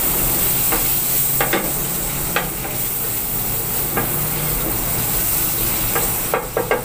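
Sliced garlic and ginger sizzling in hot oil in a wok while a wooden spatula stirs them, with a few light knocks of the spatula against the pan. The sizzle drops away near the end.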